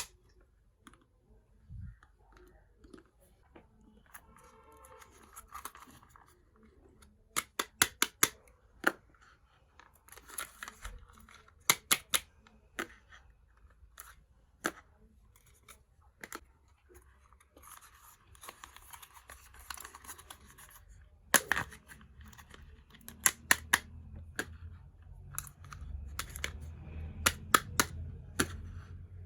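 Miniature toy kitchen pieces being unpacked: sharp clicks in quick clusters of two to five, with stretches of crinkling plastic packaging in between.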